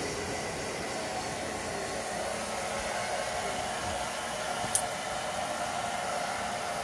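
Hair dryer blowing steadily with a faint motor whine, drying a dog's wet coat after a bath. A single short sharp click about five seconds in.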